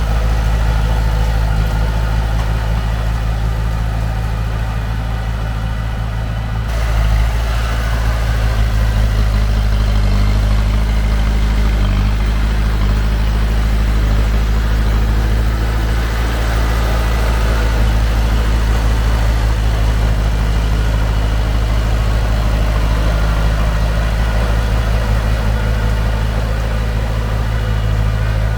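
Heavy diesel engine of construction machinery running steadily with a low drone. About seven seconds in, it gets slightly louder and the sound shifts.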